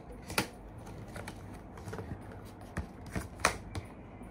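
Cardboard Apple Watch Series 7 box being opened by hand: paper tear strips pulled off and the packaging handled, with a scatter of sharp clicks and rustles, the loudest about three and a half seconds in.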